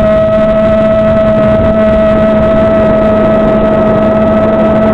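FPV quadcopter's brushless motors and propellers running at steady throttle in flight: a loud, steady whine holding one pitch.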